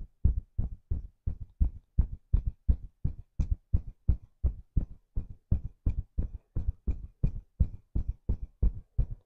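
Fingertips of both hands tapping steadily on the chest just below the collarbone, an even run of dull thumps at roughly four taps a second, made a little loud by the microphone picking them up.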